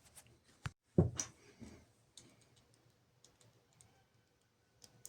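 Scattered clicks and small knocks of a Lenovo IdeaPad 330 laptop's plastic case parts and screws being handled during reassembly, with a louder knock about a second in.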